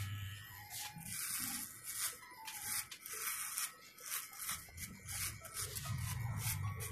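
Electric hair clipper cutting a man's hair, its low buzz stronger near the start and again near the end, with the crisp crunch of hair being cut between.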